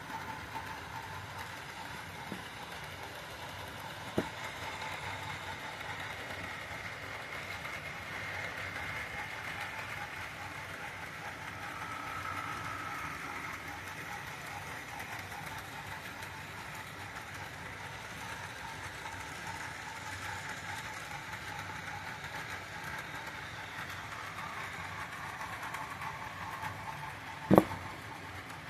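HO scale model trains running along the layout track, with a steady motor and gear whine and light wheel clatter. A small click comes about 4 s in, and a louder sharp knock comes near the end.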